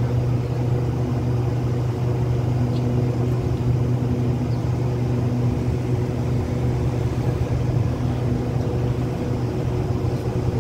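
Diesel-hauled passenger train idling at the platform: a steady low hum with a few even tones above it that holds unchanged.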